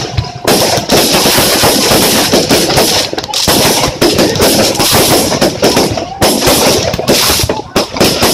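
Aerial fireworks display: rapid, near-continuous bangs and crackling of bursting shells, with a few brief lulls.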